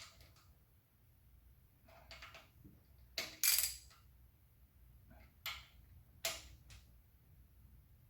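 Hand tools and small bolts clinking on the metal parts of an engine's timing-chain tensioner as it is bolted on: about five or six light metallic clinks and taps spread out, the loudest about three and a half seconds in.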